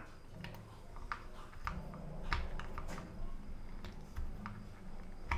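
Tiny screwdriver turning a small screw into a miniature bicycle frame: light, irregular clicks and ticks of metal on metal and handling of the small parts.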